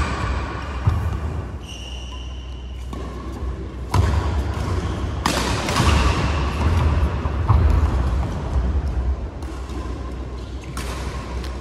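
Badminton rally: sharp racket strikes on the shuttlecock, a second or a few seconds apart, with players' footfalls thudding on the court.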